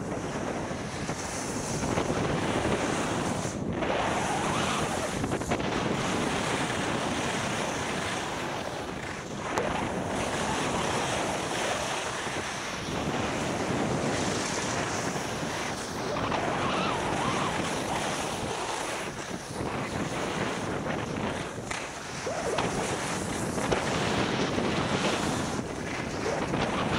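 Wind buffeting a helmet-mounted camera's microphone while skiing downhill, mixed with the hiss of skis on snow. The rushing noise swells and fades every few seconds.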